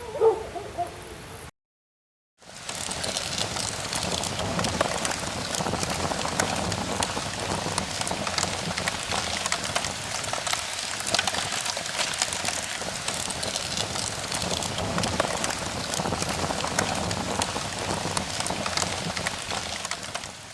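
Steady rain: a dense patter of many small drops with fine ticks throughout. It starts after the fading end of a wavering animal howl and about a second of silence.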